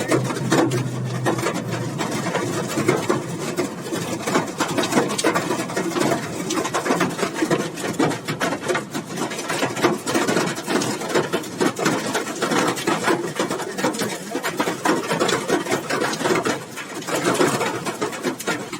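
Heavy rain coming down hard: a loud, dense, rapid crackle of drops striking close to the microphone.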